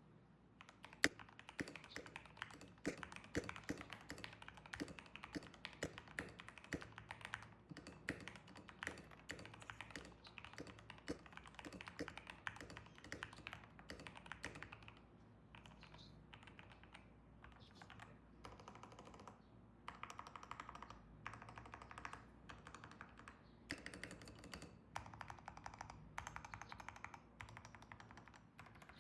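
Typing on an Epomaker Brick87 mechanical keyboard with Gateron G Pro 2.0 Yellow linear switches: a steady stream of key clacks, thinning out for a few seconds about halfway through, then quicker, denser runs of keystrokes.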